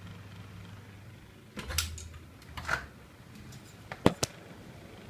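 Faint low hum, then rustling handling noise about a second and a half in and again near three seconds, and two sharp clicks in quick succession about four seconds in.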